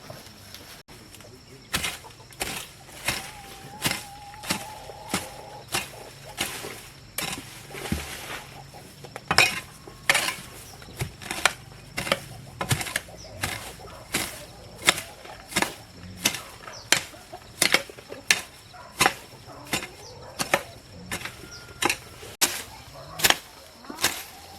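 Steady rhythmic chopping with a hand tool, about three strikes every two seconds, starting a couple of seconds in.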